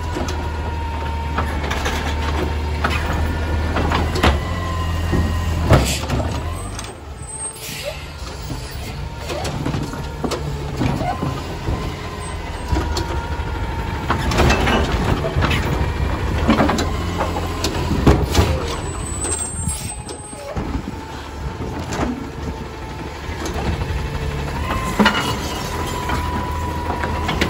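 Automated side-loader garbage truck lifting a plastic recycling cart with its hydraulic arm and dumping it into the hopper. The truck's engine runs under a steady hydraulic whine that comes and goes. Several loud clanks come as the cart knocks against the truck while it is shaken out.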